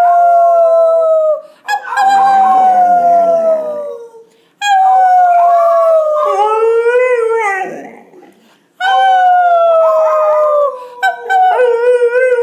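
A five-month-old golden retriever puppy howling along with people who howl to prompt him: about four long, drawn-out howls that slide down in pitch. The later howls waver up and down, with several voices overlapping near the end.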